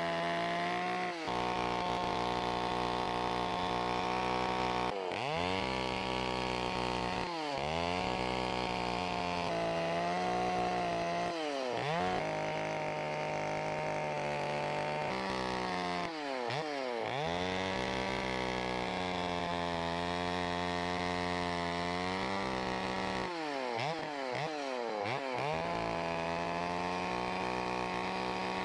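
Two-stroke carving chainsaw running at high revs, its pitch dropping and climbing back several times as the throttle is eased and reopened while the chain cuts into wood.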